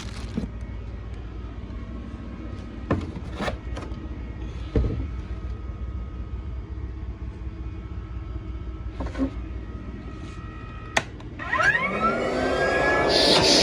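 A few knocks and clicks over a low steady hum. Near the end a Rainbow vacuum cleaner's motor is switched on and spins up with a rising whine into a loud, steady run.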